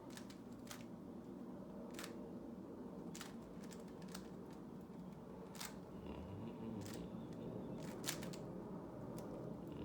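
Plastic Rubik's cube layers being turned by hand: irregular sharp clicks, about a dozen spread unevenly, over a steady low hum.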